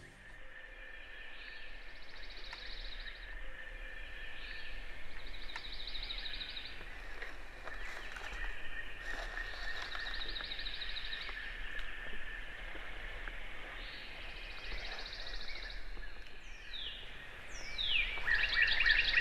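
Birds singing in the woods at dawn. A songbird repeats a short, high trill about every four seconds over a steady background of other birds, and near the end a louder bird call with quick falling notes comes in.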